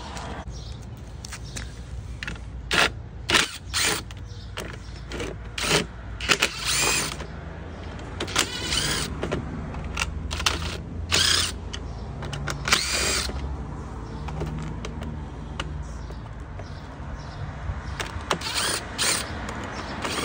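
Repair handling noises: a string of short scraping and clicking sounds, some lasting about half a second, over a low steady rumble.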